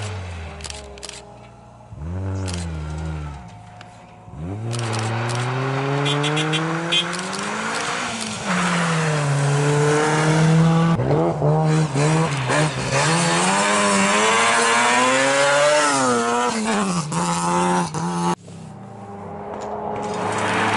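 Rally car engines on a stage. In the first few seconds one car's engine falls in pitch as it drives away. Then a Subaru Impreza rally car is heard approaching for many seconds, its engine note climbing and dropping over and over as it is driven hard through the gears; near the end the engine note cuts off suddenly and a rising rush of noise follows as the car nears.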